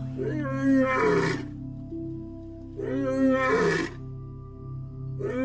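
Lion roaring three times, about three seconds apart, over background music with sustained notes; the third roar starts near the end.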